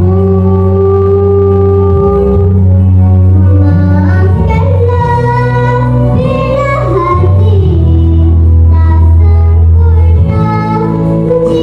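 A young girl singing a slow song solo into a microphone, holding long, wavering notes over an instrumental accompaniment of sustained low notes that change every few seconds.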